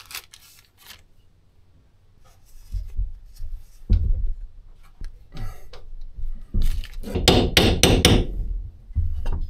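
A quick run of sharp metal taps, a hammer striking a socket held against the Kubota B7100's gearbox housing to drive a part into its bore. The taps come about three-quarters of the way in, after a few dull knocks from the casing being handled.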